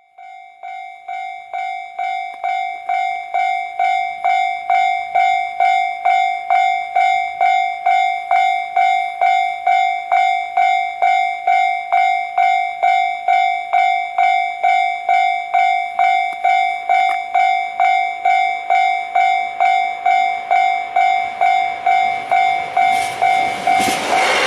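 Japanese level-crossing warning bell ringing steadily at about two strikes a second, faint at first and growing louder over the first few seconds. Near the end the rushing noise of the approaching KiHa 261 series diesel express train rises under the bell.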